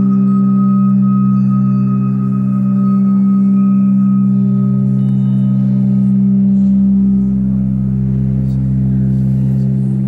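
Ambient electronic drone music: a steady low chord of held tones with faint high sine-like tones coming and going above it, and a deeper rumbling bass layer joining about six seconds in.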